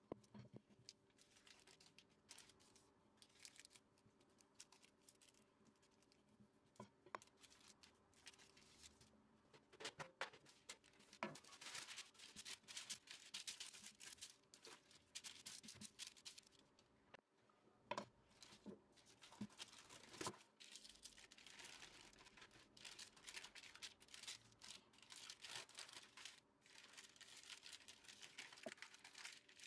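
Faint kitchen handling sounds: a wooden rolling pin rolling over plastic-covered dough with light clicks, then parchment paper rustling and crinkling as it is laid in a baking tray and peeled back from the dough. The paper handling is louder and busier from about ten seconds in, with a short pause partway through.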